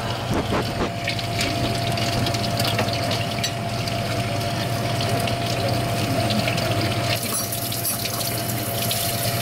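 Water running steadily from a kitchen tap, over a steady low machine hum.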